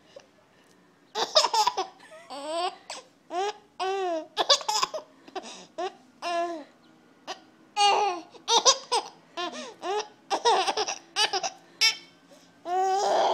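Baby giggling in repeated short bursts of high-pitched laughter, starting about a second in, with a longer laugh near the end.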